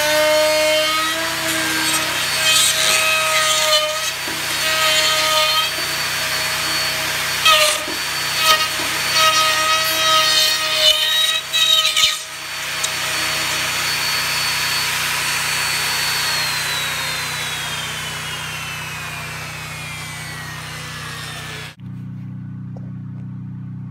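DeWalt router with a bearing-guided dovetail bit running at full speed and cutting into the end of an ash timber along a template: a loud whine with rasping bursts as the bit bites, for about half the time. It then runs free with a steady whine, is switched off, and winds down with a falling whine over several seconds. Near the end the sound gives way to a quieter low hum.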